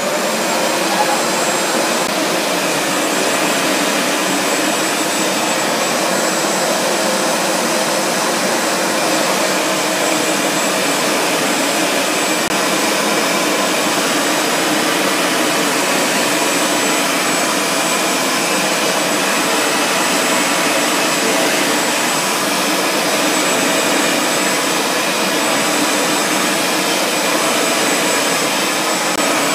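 Hoover Max Extract 60 Pressure Pro carpet cleaner running steadily, its motor giving a loud, even rush of air with a thin high whine on top.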